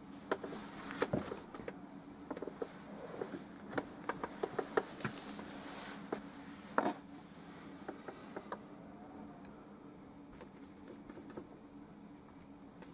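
Oil-painting brush and tools handled at the palette: a quick run of small clicks and taps over a steady low hum, busiest in the first seven seconds and thinning out after.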